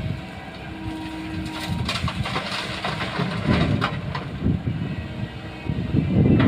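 Komatsu PC135 excavator's diesel engine running steadily, with a brief steady whine about a second in and a cluster of short, sharp clatters between about two and four and a half seconds in.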